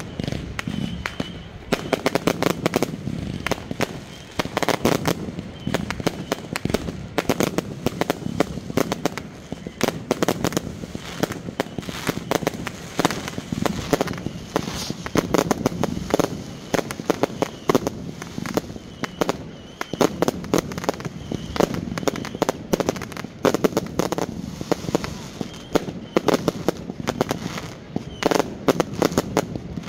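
Fireworks going off in rapid succession: a dense, continuous run of crackling bangs with no pause.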